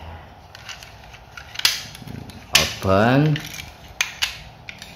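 Hard plastic clicks and snaps as the parts of a transformable toy police helicopter are folded and pressed into place by hand: a few scattered clicks, the loudest about two and a half seconds in, and two more near the end.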